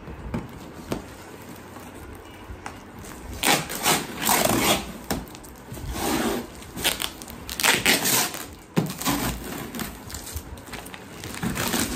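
Brown packing tape being ripped off a cardboard parcel in a series of rasping pulls, starting about three and a half seconds in, with the cardboard box rustling as it is handled.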